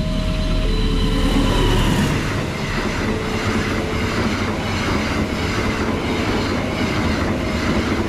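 A passenger train's coaches run past at a level crossing, with steady wheel and rail noise and rhythmic clacking as the wheels cross the rail joints; the noise swells about a second in as the head of the train arrives. Underneath, the crossing's electronic warning alarm keeps sounding, alternating between a lower and a higher tone.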